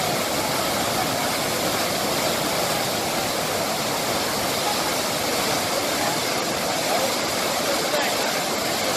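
Floodwater rushing out through the row of arched spillway outlets of the overflowing Bhatghar dam, a steady, unbroken rush of falling water.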